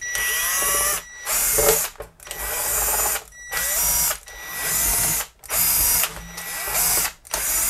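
Cordless power screwdriver running in short runs of about a second each, about eight times with brief pauses, backing Torx screws out of a metal shield.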